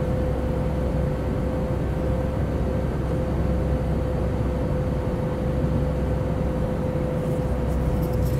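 Steady cabin drone of a jet airliner in flight, heard from a window seat: turbofan engine and airflow noise as a low rumble and hiss, with one steady hum held at the same pitch throughout.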